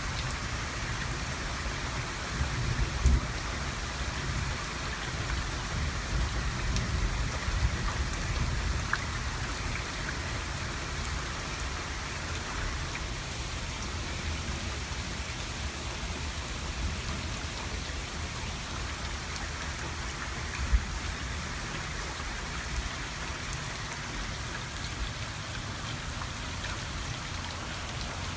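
Steady rain falling in a thunderstorm, with a low rumble of distant thunder over the first ten seconds or so that then fades. Two brief sharp knocks stand out, about 3 seconds and about 21 seconds in.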